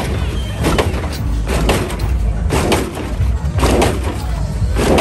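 Lowrider on hydraulic suspension hopping, its body slamming down about once a second, five times, over a steady low rumble.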